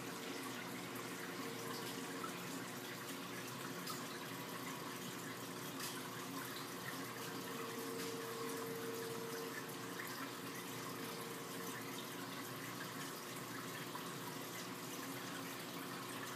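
Steady running and trickling of water circulating in a large aquarium, with a faint hum that comes and goes.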